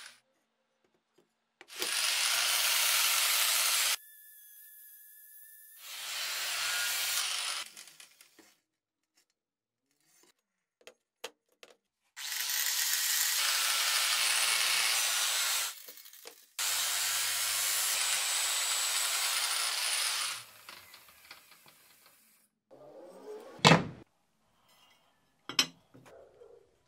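A power tool working on metal in four bursts of a few seconds each, with a brief steady high whine between the first two bursts and a single sharp knock near the end.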